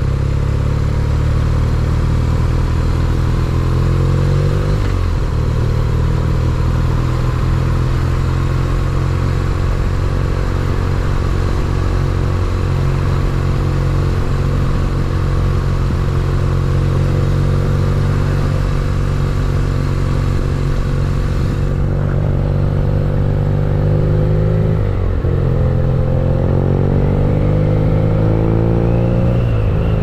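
BMW R nineT Pure's boxer twin pulling under way. Its note climbs and then drops with an upshift about five seconds in, holds fairly steady at cruise, then climbs and drops again with upshifts about 25 seconds in and near the end. Wind rush runs underneath.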